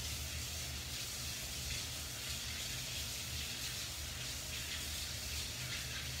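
Kitchen faucet running steadily, the stream splashing over hands being rubbed together under it and into the sink basin.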